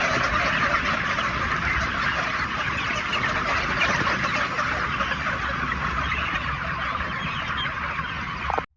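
Dense, steady din of a large flock of broiler chickens clucking and squawking inside a poultry house, with a low rumble beneath; it cuts off abruptly near the end.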